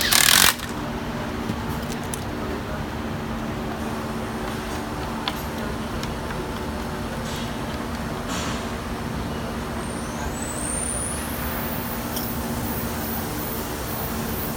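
A handheld power screwdriver runs in one short burst of about half a second at the start, driving a fastener into a plastic car grille. After it, a steady factory hum with a constant low drone, and a few light clicks of parts being handled.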